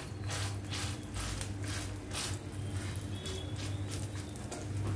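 Wet fingers patting and pressing a ball of thalipeeth dough flat in an oiled nonstick pan: a run of soft, squishy pats, about two or three a second.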